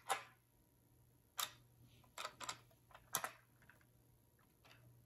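Light, irregular clicks and taps of a 3D-printed plastic hand-dryer housing being handled, with a small cooling fan seated loosely in its bracket on screws used as pins, about half a dozen sharp ticks a second or so apart.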